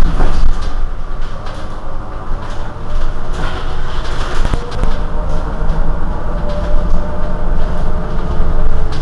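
Irizar i2e battery-electric bus standing at a stop, giving a steady mechanical hum with a constant whine that settles in about halfway through, and a couple of sharp knocks.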